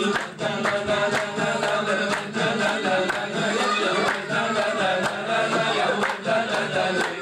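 A man singing through a microphone, with people around him clapping a steady beat along with the song.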